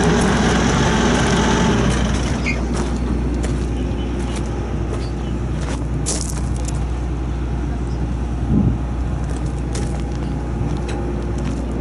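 CAT diesel engine of a Challenger SP115B swather idling steadily, a low even hum that drops a little in level about two seconds in.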